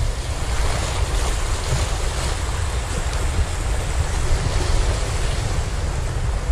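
Sea waves washing and splashing against a rocky shore, a steady hiss, with wind buffeting the microphone as a deep rumble.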